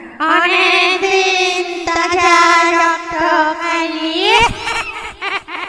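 Horror sound effect: a high, eerie female voice holding a long wavering wail, rising in pitch about four seconds in, then breaking into short choppy cries.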